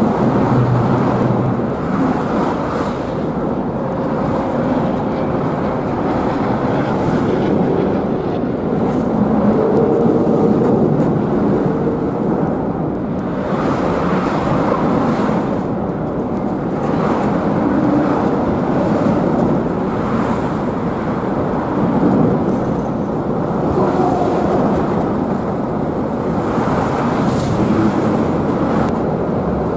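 Steady outdoor rumble with wind on the microphone, swelling and easing every few seconds.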